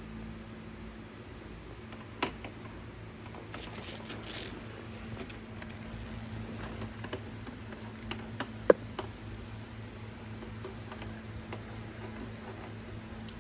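Scattered light clicks and taps of hand work on scooter wiring, with one sharp click about nine seconds in, over a steady low hum.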